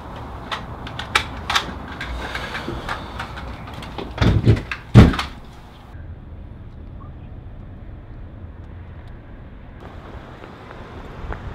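Sharp clicks and knocks, then a few heavy thumps between four and five seconds in, like a door banging. The thumps give way to the steady low rumble of a car's cabin on the move.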